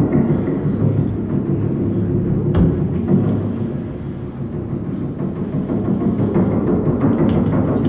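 Drum feedback: drums resonating through microphones and amplification, a dense low rumbling drone with no clear melody. A couple of sharp knocks cut through about a third of the way in.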